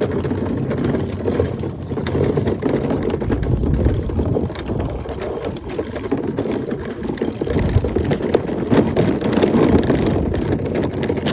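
Hard plastic wheels of a toddler's push car rolling over concrete and asphalt, a continuous dense rattle and rumble. The wheels are wrapped in duct tape, which makes them a little quieter and less hollow-sounding, but the loose axles keep the rattle loud.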